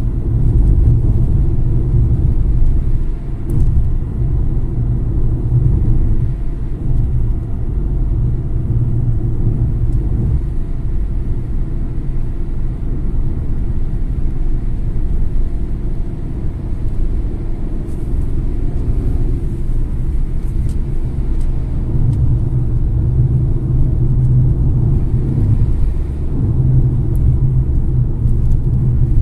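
Car driving at road speed on a highway: a steady low rumble of engine and tyre noise heard from inside the car.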